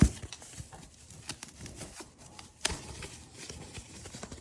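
Light handling noises of a cardboard box and its packaging: scattered soft clicks and rustles, with a sharper click right at the start and another about two and a half seconds in.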